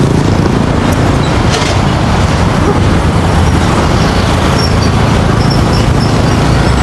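Steady road traffic noise from a busy highway, with wind rumbling on the microphone as the bike moves.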